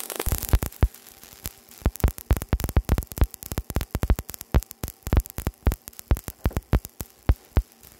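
Irregular sharp clicks and pops, several a second at uneven spacing, starting just after an x-ray tube's beam comes on. It is a crackle picked up by a phone camera lying in the x-ray beam, whose sensor is being struck at the same time.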